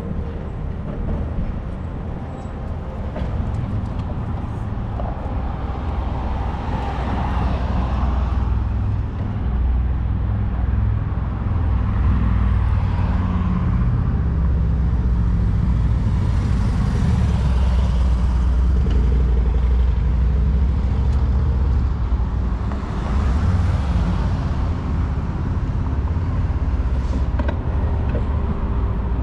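City street traffic: about four cars drive past one after another, each swelling and fading, over a steady low rumble.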